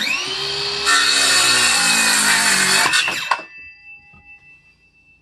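Circular saw spinning up, then cutting through a 2x4 board for about two and a half seconds. After the blade clears the wood the motor winds down with a falling whine.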